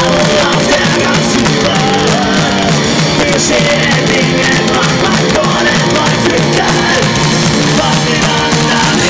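Punk rock band playing live, heard from the audience: electric guitars, bass guitar and drums with a singer's vocal over them.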